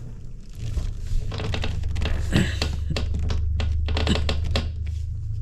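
Gloved hands pushing freshly primed and glued PVC P-trap fittings together onto the drain pipe: a run of small knocks, taps and plastic rubbing, over a steady low hum.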